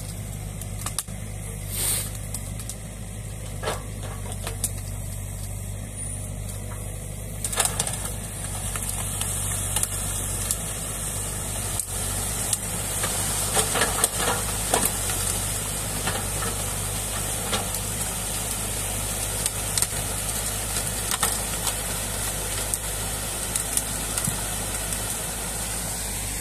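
Mini crawler excavator's diesel engine running steadily, with scattered knocks and cracks as the bucket tears into a beaver dam of packed sticks and mud. After about seven seconds the dam is breached and water rushes through in a loud, steady hiss.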